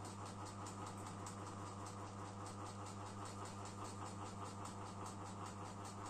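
GMC FC-06-600 600 mm mini ceiling fan running, with a steady motor hum and a fast, even ticking about five times a second. The fan is pretty noisy and wobbly because one of its blades is bent.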